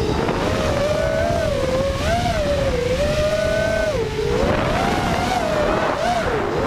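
FPV racing quadcopter (xRacer 220 with Cobra 2206 2100kv brushless motors on 4S) in flight, its motors and propellers whining in a pitch that rises and falls again and again with the throttle, over a rush of air noise on the onboard camera's microphone.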